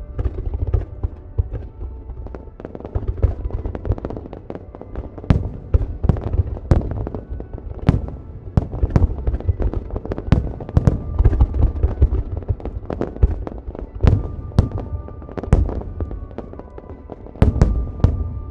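Aerial fireworks shells bursting in a rapid, irregular series of sharp bangs and crackles, with a dense cluster of loud bangs near the end. Music plays alongside, with held tones.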